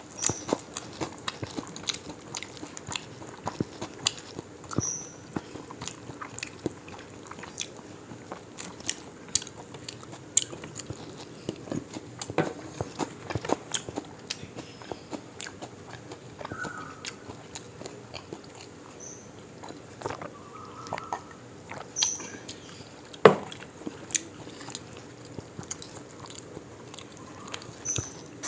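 Close-up eating sounds of someone biting into and chewing deep-fried parrot fish: many small crunches and mouth clicks, with one louder sharp click about two-thirds of the way through. Short high chirps come and go near the start and near the end.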